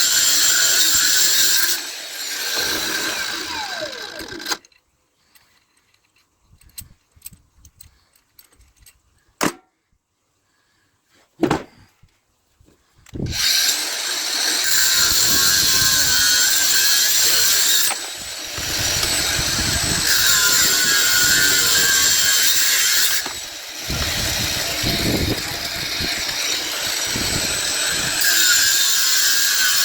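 A power tool cutting pieces of scrap brass, running steadily. About four seconds in it stops for roughly nine seconds, with a few sharp clanks of metal being handled, then cuts again.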